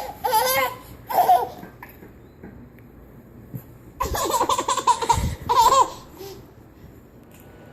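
A baby laughing in two bouts of giggles, one at the start and another about four seconds in.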